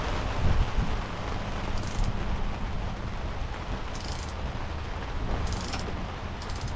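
Strong storm wind buffeting the microphone, a dense steady rush with heavy low rumble.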